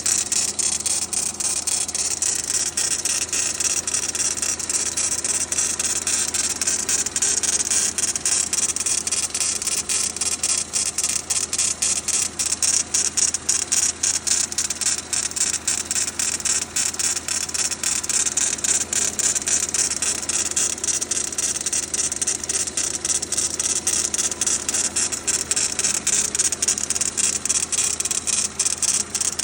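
Renault Duster's 2.0-litre F4R four-cylinder petrol engine running just after a cold start, with a fast, even knocking. The owner reports it comes only on a cold start, lasts about two minutes, then goes away.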